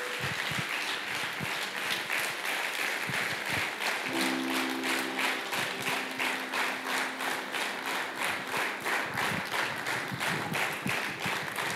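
Congregation applauding, a dense steady clapping throughout. A soft held keyboard chord joins about four seconds in.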